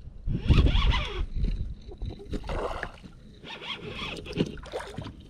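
Irregular rustling and rasping of a hooked largemouth bass being reeled in to a plastic kayak, with a low wind rumble on the microphone in the first second.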